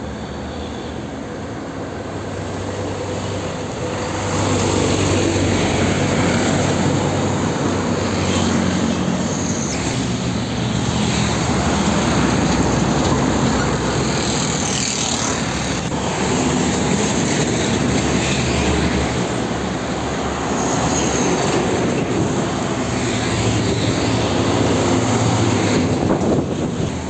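Heavy diesel trucks passing close one after another on a concrete road, their engines running under steady tyre noise. The sound swells about four seconds in as the first loaded trucks draw near, and stays loud as a truck with a trailer and then a container truck go by.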